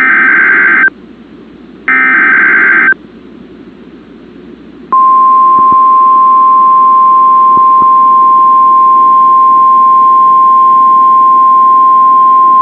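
NOAA Weather Radio EAS/SAME header data bursts: the end of one harsh, buzzing one-second burst, then another about two seconds in, with faint radio hiss between. About five seconds in, the steady single-pitch 1050 Hz warning alarm tone starts, marking a required weekly test.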